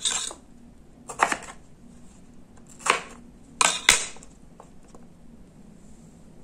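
Crinkle-cut potato cutter's wavy metal blade chopping through potato and knocking on a cutting board: several short, sharp chops, the last two close together about four seconds in.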